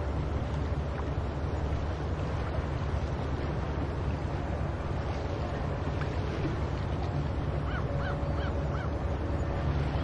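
Seaside ambience of steady wind and surf rumble with gulls calling: a quick run of four short calls comes near the end.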